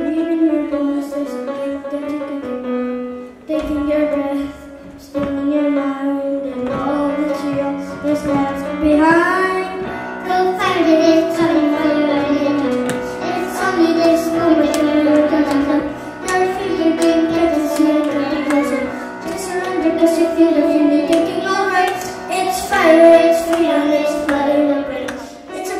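A child singing into a microphone with grand piano accompaniment, the voice carrying a melody of held notes over the piano chords.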